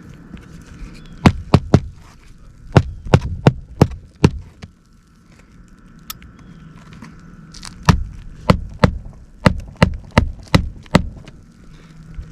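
Hammer driving roofing nails into an asphalt shingle: runs of sharp strikes about three a second, a short run of three, then five, then a longer run of eight near the end.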